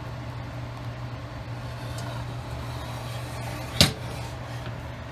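Steady low mechanical hum of kitchen background noise, with a single sharp knock about four seconds in.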